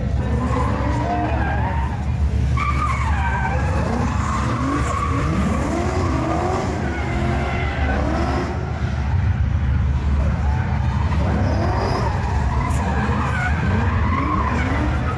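Drift cars sliding around a cone: engines repeatedly revving up and down and tyres squealing, loud and continuous.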